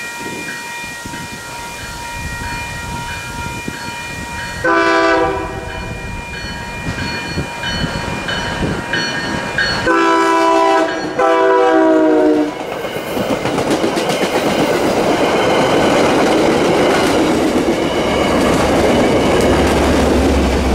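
A railroad crossing bell rings steadily while a locomotive's air horn sounds a chord: one short blast about five seconds in, then two long blasts close together ending around twelve seconds. The train then passes, its wheels rumbling and clacking on the rails.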